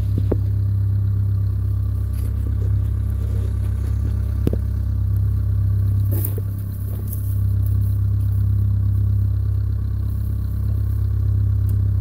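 Vermeer mini skid steer's diesel engine running steadily, with a couple of short clanks, as the machine pulls on a taut tether to a second mini skid steer stuck in a ditch.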